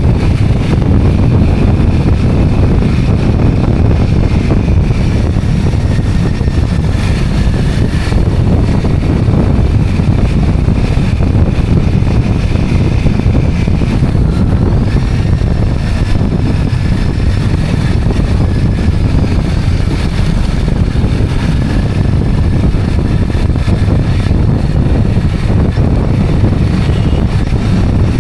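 Steady, loud wind rush on the microphone of a moving two-wheeler, with the road and engine noise of the ride underneath.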